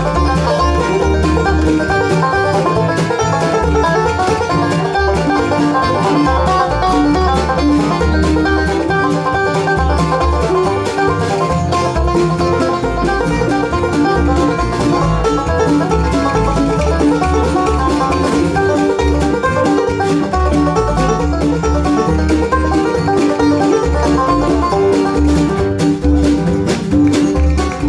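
Live bluegrass band playing a gypsy-style instrumental, with the banjo prominent over fiddle, guitar and upright bass, and a steady beat in the low end.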